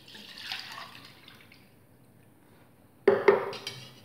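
Water poured from a steel jug into a small steel pan for about a second and a half. About three seconds in come a few loud, sharp clinks of steel utensils against the pan as stirring begins.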